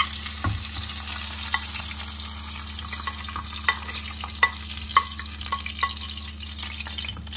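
Spicy Korean noodles sizzling in a frying pan on a gas burner, while a metal spoon clinks and scrapes against a small steel pan, scooping fried sausages onto them. The clinks come sharp and irregular over a steady frying hiss and a low hum.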